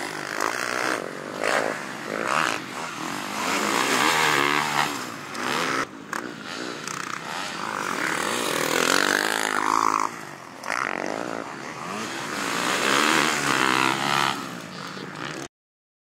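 KTM motocross bike engine revving hard and easing off again and again as it is ridden around a dirt track, its pitch rising and falling with the throttle. The sound breaks abruptly a couple of times and cuts off suddenly near the end.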